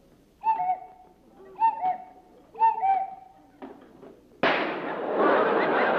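Cuckoo clock calling three times, each a two-note falling "cu-ckoo". A little over four seconds in, a sudden loud, steady rush of noise starts and continues.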